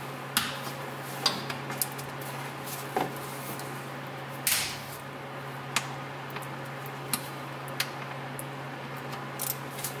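Metal clicks and knocks from a hand tool with a T40 Torx bit being seated and turned on the very tight drain plug of a GM 5L40E transmission pan. A longer, louder crack about four and a half seconds in fits the plug breaking free, which is described as a pretty explosive fastening.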